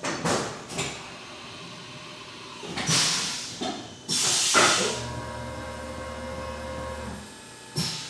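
A Haas UMC 750 five-axis CNC mill between machining operations: several short, sharp air hisses, the loudest about four seconds in, typical of a pneumatic tool change. They are followed by a steady low hum with a faint whine for about two seconds.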